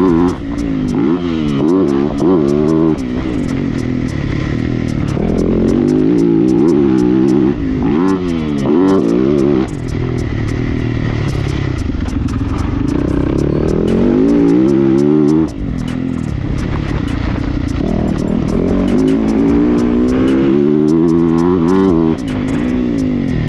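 Yamaha motocross bike's engine revving hard and backing off over and over as it is ridden around a dirt track, its pitch climbing through each burst of throttle and dropping away, with sharp drops about 15 and 22 seconds in.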